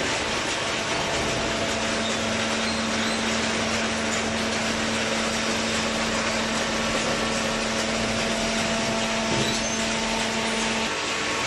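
Hydraulic paper baling press running: a steady mechanical noise with a steady hum, and the hum cuts off near the end.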